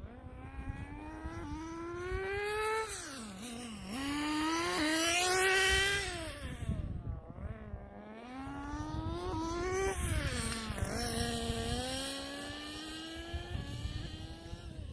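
Tamiya FS18LT two-stroke glow engine of a nitro RC car, fitted with a TM2 manifold and muffler, running at speed. Its high, buzzing note climbs under throttle and drops off about four times as the car accelerates, lifts off and sweeps past.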